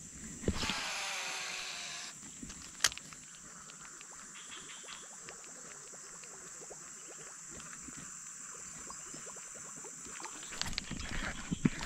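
Baitcasting reel spool spinning as a lure is cast: a whir that falls in pitch, starting about half a second in and lasting about a second and a half, followed by a single sharp click a second later and then faint ticking. Louder knocks start near the end.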